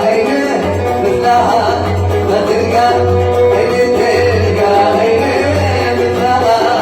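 Oud playing a Yemeni Sanaani song melody over a steady low pulsing beat.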